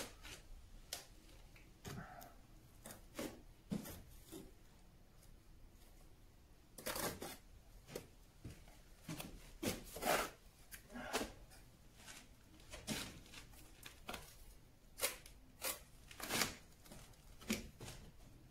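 Faint, irregular short scrapes and knocks of a trowel working sand-and-cement mortar, a few seconds apart, as padstone bedding is scooped and pushed into place.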